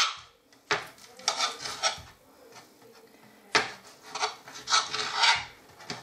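Kitchen knife cutting boneless chicken thighs into rough pieces on a glass chopping board, the blade scraping and tapping against the glass. It comes in two bursts, the first under a second in and the second from about three and a half seconds.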